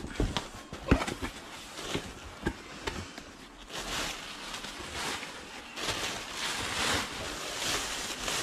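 Handling noise while unpacking: a few light taps and knocks of objects being moved in the first few seconds, then soft rustling of packaging.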